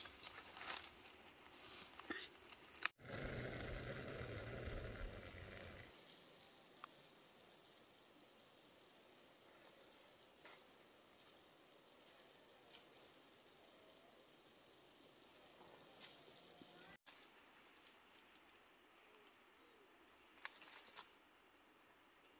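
Faint outdoor ambience with insects chirping steadily. A few light knocks and rustles come in the first seconds, and a louder stretch of rumbling noise lasts from about three to six seconds in.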